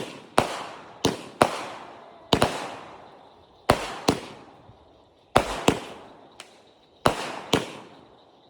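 Fireworks going off: a run of sharp bangs, mostly in pairs about half a second apart, every second or so. Each bang trails away in a long echo.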